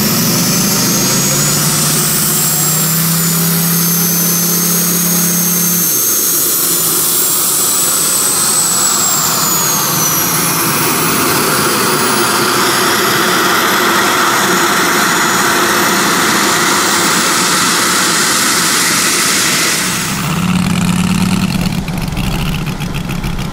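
A model jet's turbine running with a high whine that wavers up and down in pitch as the RC L-39 taxis, with a lower drone underneath that stops about six seconds in. About twenty seconds in it gives way to the RC Corsair's propeller engine running at a low, evenly pulsing idle.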